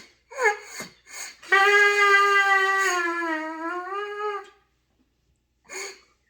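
Trumpet: a few short blips that fall in pitch, then one note held about three seconds that sags in pitch and comes back up, and one more brief blip near the end.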